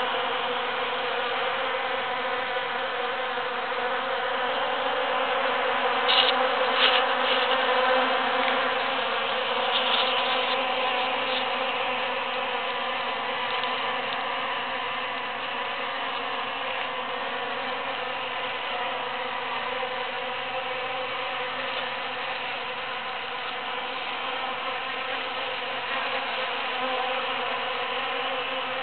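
Honeybees buzzing steadily as they forage in large cactus flowers: a continuous hum of many overlapping wingbeats. A few brief taps come about six seconds in and again about ten seconds in.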